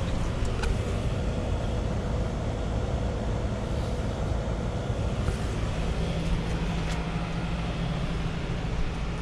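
A 2008 Trane XB13 heat pump outdoor unit running steadily, a constant low hum with a few faint ticks.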